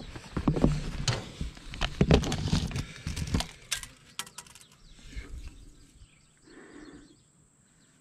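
Knocks, clicks and rubbing of a camera being handled close to its microphone. The sound drops away about three and a half seconds in.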